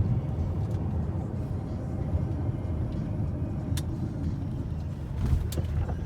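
Car running with a steady low engine and road rumble, with a few short clicks near the end.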